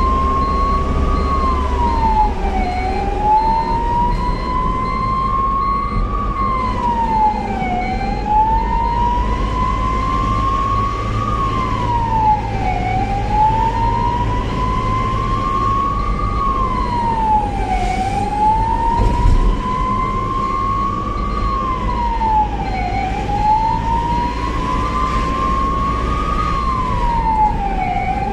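Ambulance siren wailing over the steady low rumble of the moving vehicle. Each cycle rises slowly over about four seconds, drops quickly, and repeats every five seconds.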